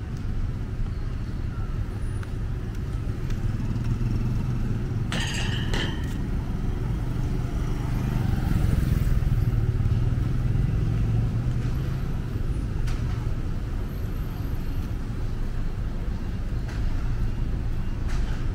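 Road traffic running past, a steady low engine rumble that swells as a vehicle passes close, about eight to eleven seconds in. About five seconds in there is a short burst of hissing noise.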